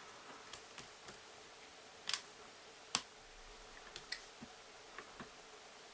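Lock picking on a six-pin Master lockout tagout padlock with security pins: scattered light clicks of the pick and tension wrench working the pins. Two sharper clicks stand out about two and three seconds in, the second the loudest.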